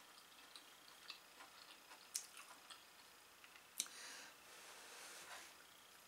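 Near silence with faint eating sounds: a metal fork clicking against a plate a couple of times, the clearest about two seconds in and again near four seconds, then faint chewing.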